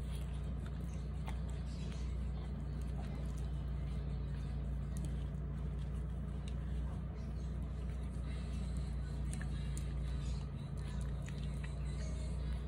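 A steady low hum, with faint scattered ticks and scuffles from Shih Tzu puppies playing on a plastic tray.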